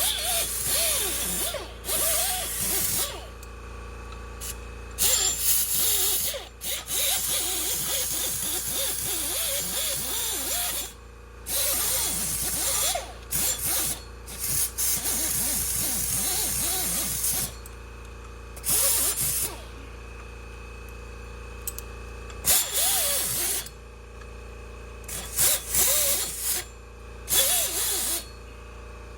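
A hand-held power tool scrubbing rust off the wheel hub's mounting face, run in a series of short bursts that start and stop many times.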